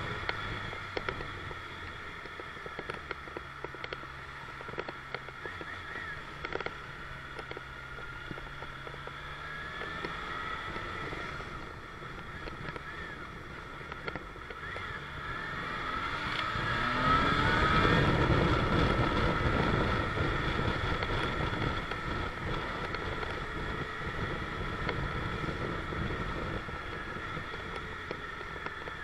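Motorcycle engine and wind rush as heard from the bike itself. The engine runs low and steady at first, then revs up with rising pitch about 16 seconds in as the bike accelerates. After that it settles into steady riding noise.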